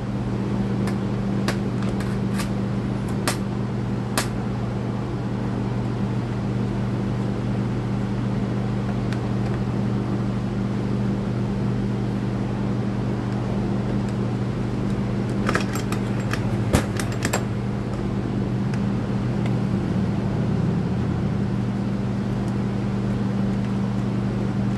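Steady hum of electric shop fans, with a few light clicks and ticks of a hand screwdriver and screws as the recoil starter housing is screwed back onto a string trimmer's engine, several in the first few seconds and a small cluster about two-thirds of the way in.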